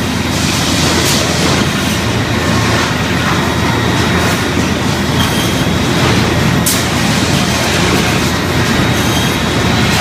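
Sawmill machinery running with a steady, loud din as chain conveyors carry freshly sawn boards across a lumber transfer deck, with a few sharp knocks, about a second in and near seven seconds.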